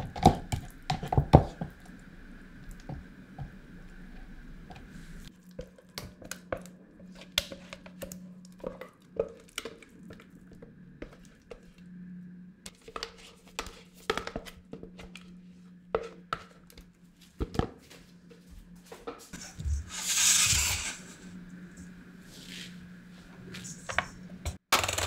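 Spatula scraping and tapping thick blended tofu cream in a plastic blender jug and out into a glass bowl: scattered clicks and soft wet scrapes, with a longer, louder scrape about twenty seconds in. An electric hand mixer starts up right at the end.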